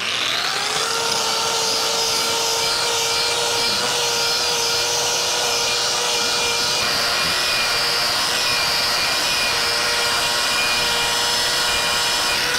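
Angle grinder with a wire cup brush spinning up over the first second, then running at a steady whine as the brush strips paint and loose caulking off a stucco wall.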